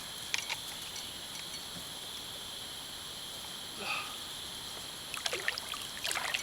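Water trickling and lightly splashing around a kayak over a steady background hiss, the splashing picking up about five seconds in.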